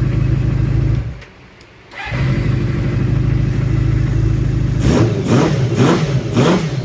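Kawasaki GT 550's four-cylinder engine idling steadily on freshly balanced carburettors, all four cylinders firing. It drops out for about a second, then comes back. Near the end come several quick throttle blips.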